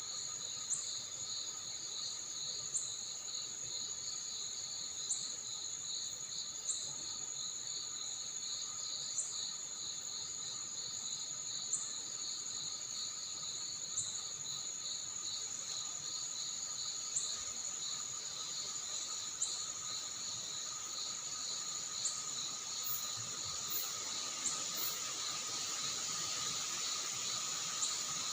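Crickets and other insects calling steadily in a chorus: one trilling in rapid pulses, another holding a high continuous whine, with a short sharp click about every two seconds. A soft even hiss lies underneath.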